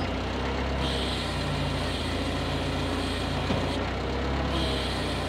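Toyota forklift's engine running steadily while the forklift lifts with its mast, a hiss joining about a second in and dropping out briefly near four seconds.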